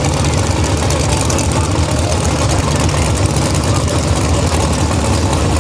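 Car engine running loud and steady, a deep low rumble with no revving.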